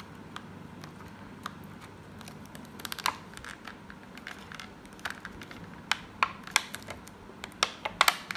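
Sharp plastic clicks and taps of truke BTG Alpha true wireless earbuds being fiddled into their glossy plastic charging case, where one is catching and won't sit. A few clicks at first, then a quicker run of them in the second half.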